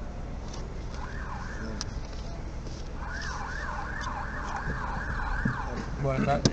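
Emergency-vehicle siren in a fast yelp, its pitch swinging up and down about three times a second. It comes in briefly about a second in and again from about three seconds. Under it runs the low steady rumble of the car driving.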